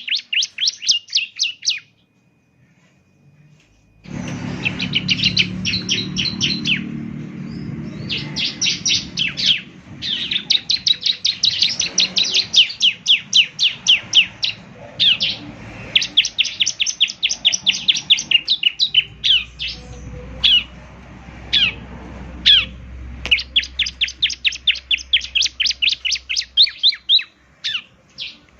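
Bar-winged prinia (ciblek) singing: fast runs of sharp, high chirping notes, roughly eight to ten a second, in bursts of several seconds. The song breaks off briefly about two seconds in. A faint low hum sits under the song in places.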